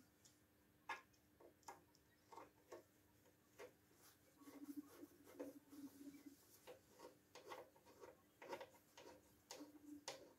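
Faint, irregular small clicks and taps of a screwdriver working screws in a lathe's sheet-metal electronics housing, over a faint steady hum.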